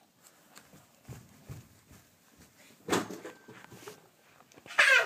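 A pet ferret playing on carpet: scattered soft bumps and scuffles, a louder scuffing bump about 3 seconds in, and a brief vocal sound with wavering pitch near the end.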